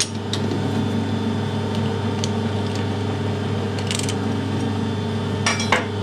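A few light metallic clicks and clinks, with a small cluster near the end, as a steel push tool with a ball bearing on its end is handled and taken out of a three-jaw lathe chuck. Under them runs a steady low machine hum.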